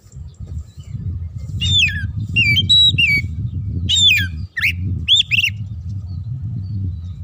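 Oriental magpie-robin singing a burst of about ten loud, clear whistled notes, many sliding down in pitch. The song starts about a second and a half in and stops about two seconds before the end, over a steady low rumble.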